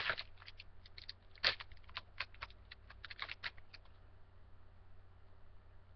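Baseball cards and a foil pack wrapper being handled: a quick run of short crinkles and clicks for the first few seconds, then only faint rustling.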